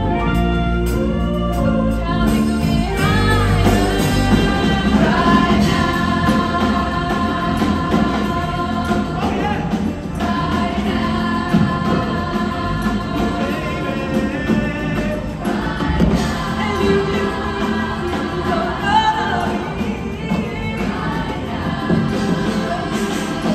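A large group of singers performing a song together with a live band of drums, electric guitars and keyboards, heard through a hall's sound system.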